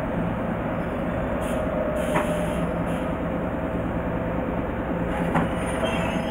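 Steady mechanical hum inside the driver's cab of an Ichibata Electric Railway 2100 series electric railcar, with a few brief high hisses in the first half.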